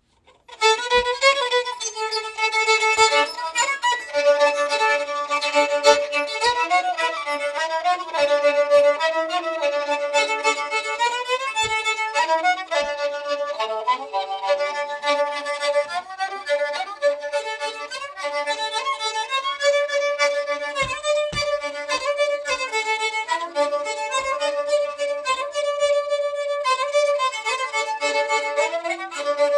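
A home-repaired fiddle, reglued and fitted with a substitute tuning peg, played with the bow: a continuous fiddle tune starting about half a second in.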